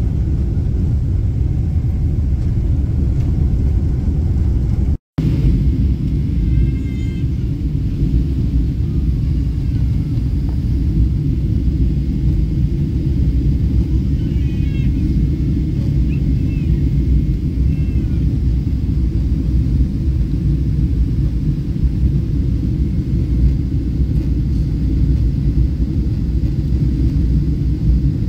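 Jet airliner cabin noise at a window seat during takeoff and climb: a loud, steady low rumble of the engines and rushing air. It cuts out for a moment about five seconds in.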